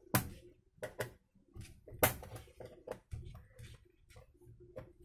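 Irregular sharp clicks and knocks of a Dell laptop's plastic case being handled and worked open by hand, the loudest knock about two seconds in.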